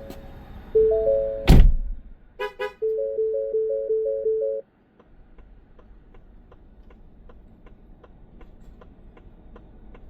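Electronic chime tones and a single loud thump, then a quickly repeating two-note electronic tone, like a ringtone or alert, that cuts off suddenly. After it come faint, regular ticks, about two a second.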